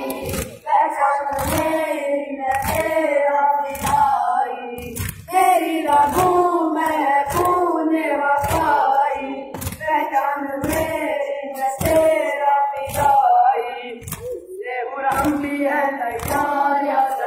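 A group of boys chanting an Urdu noha in unison, with rhythmic hand strikes on the chest (matam) keeping a steady beat under the voices. The chanting drops briefly about fourteen seconds in while the beat carries on.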